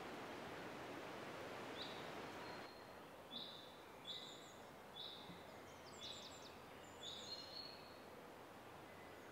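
Faint woodland ambience: a steady hiss that drops away about three seconds in, with a songbird calling in short, high chirps roughly once a second.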